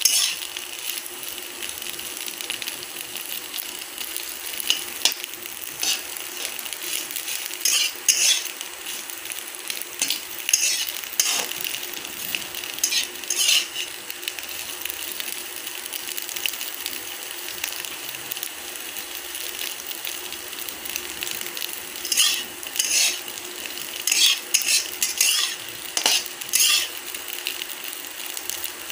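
Eggs frying in hot oil in a pan, being browned: a steady sizzle, with a spatula stirring and scraping the pan in short bursts, clustered in the first half and again about three quarters of the way through.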